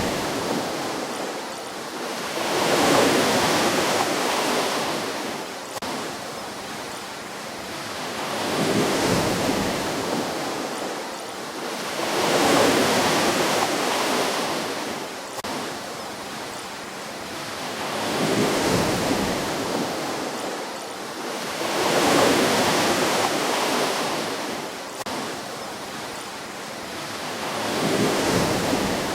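Ocean waves breaking on a shore, each wash of surf swelling and fading in a slow rhythm, about seven waves over the half minute.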